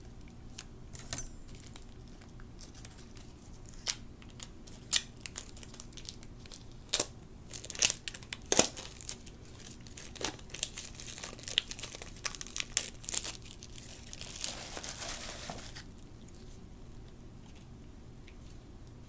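Plastic shrink wrap being torn and peeled off a tarot deck's cardboard tuck box: scattered sharp crinkles and crackles, with a denser stretch of crinkling about fourteen seconds in, then quieter near the end.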